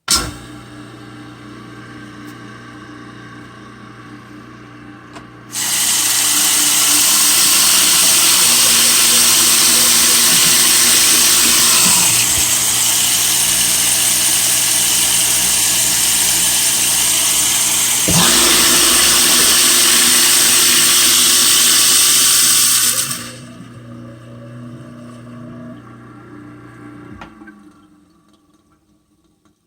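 Vintage Waste King SS5000 garbage disposal, with a half-horsepower motor, switched on and running with a steady, smooth, quiet hum. About five seconds in, tap water starts rushing into the sink and drowns out the motor. The water is shut off several seconds before the end, leaving the motor humming alone until it is switched off and winds down.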